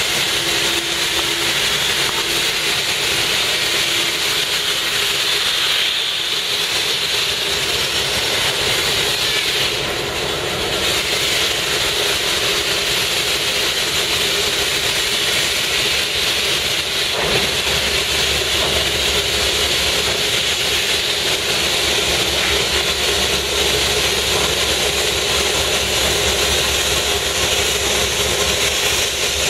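Diesel locomotive engine running with a steady hiss. A deeper low rumble joins suddenly about 17 seconds in.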